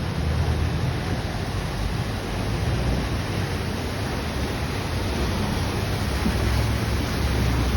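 Engine rumble of canal passenger boats running past, over the rush of churned water. The rumble swells about five seconds in and again near the end.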